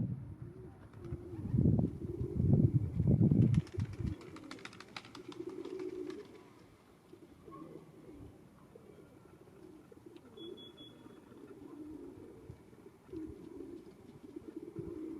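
Doves cooing, low and wavering, over and over. Loud low thumps fill the first few seconds, and a patch of rapid fine clicking comes a few seconds in.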